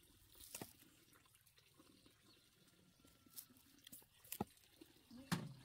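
Near silence broken by a few faint, scattered clicks and knocks, the loudest one near the end.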